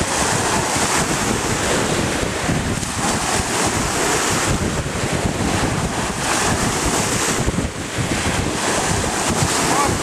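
Small sea waves breaking and washing at the shoreline, in repeated hissing surges, with strong wind buffeting the microphone.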